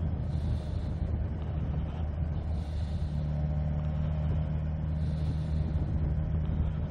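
Motorcycle engine running at a steady cruise, with wind and road noise on the rider's helmet microphone. The engine note firms up slightly about three seconds in.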